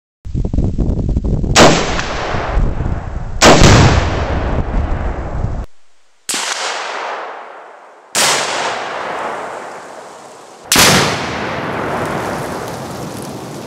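A loud rumble with two sharp booms, then three separate blasts of a 2 lb In the Red binary exploding target, each a sudden crack followed by a long rolling echo that fades over a couple of seconds.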